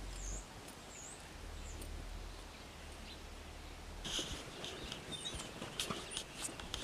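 Quiet outdoor ambience with small birds chirping. From about four seconds in it grows louder, with scattered crunching steps of bare feet on gravel and more chirps.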